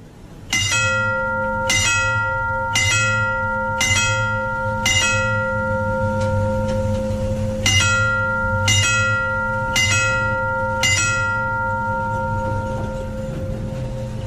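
Railway level-crossing gong bell struck by its hammers: five strikes about a second apart, a pause of nearly three seconds, then four more, each leaving a long ring that dies away slowly. A steady low hum runs underneath.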